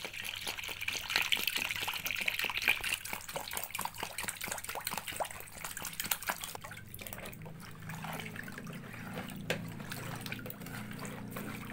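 Water poured into a plastic bowl of tapioca starch and stirred in with a metal spoon: splashing and sloshing with many small clicks of the spoon against the bowl. The pouring dies away after a few seconds, and from about seven seconds in a low steady hum runs under the stirring.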